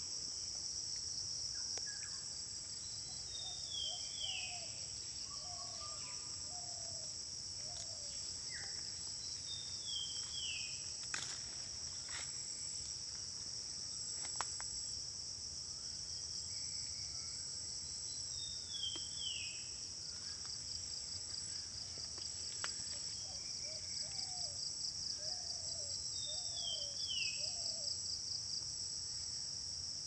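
Steady, high-pitched drone of a forest insect chorus. Over it a bird gives a short, falling, high phrase about every eight seconds, four times. Twice there is a run of five or six lower call notes.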